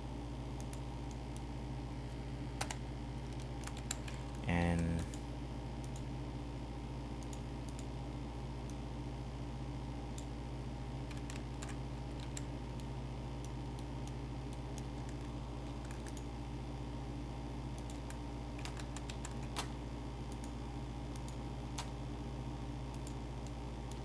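Scattered clicks of a computer keyboard and mouse, a few at a time with pauses between, over a steady low electrical hum. A short vocal sound comes about four and a half seconds in.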